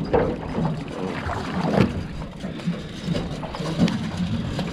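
A hooked snapper splashing at the surface as it is hauled up against the boat's hull, with water sloshing along the side over a low rumble.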